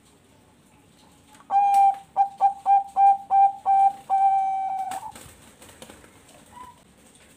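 Bangkok perkutut (zebra dove) cooing one full song phrase. It opens with a long note, runs into about six quick short notes, and ends on a long held note that fades.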